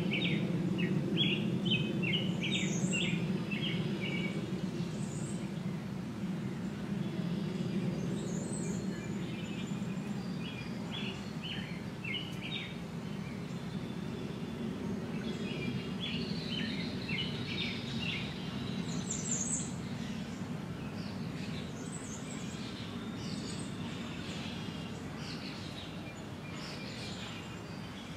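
Songbirds chirping in several bursts of quick high notes, over a steady low background hum.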